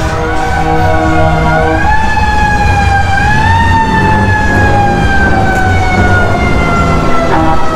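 A siren sounding one long wail that climbs over the first few seconds, then slowly falls and cuts off near the end, with background music under it.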